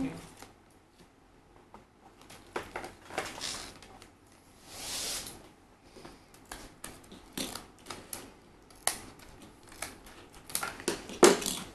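Small scissors snipping into a foil minifigure blind bag, with the crinkle of the packet being handled. The snips and crinkles come irregularly, with a longer rustle about five seconds in and the sharpest snips near the end.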